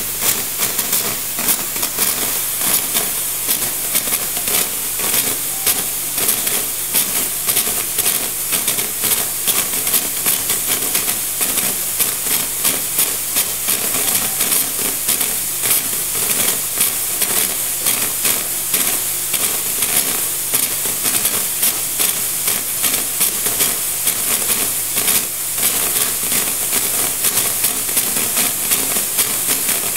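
Gaggia Classic Pro espresso machine steam wands hissing steadily, venting steam into towels.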